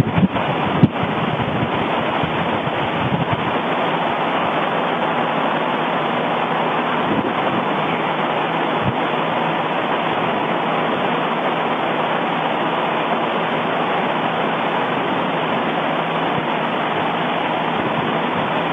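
Steady rushing noise of an erupting volcano, with a sharp crack about a second in and a couple of fainter pops later. The recording is of a different volcano, not Kīlauea.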